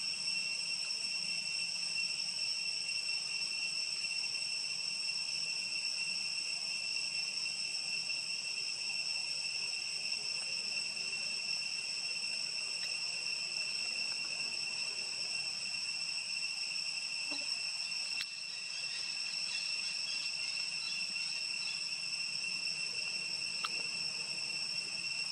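Steady, high-pitched insect chorus, an unbroken drone of forest insects.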